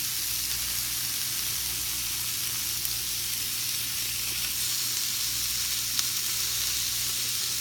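Bacon frying on the hot plates of a George Foreman contact grill: a steady sizzling hiss, with a single sharp crackle about six seconds in.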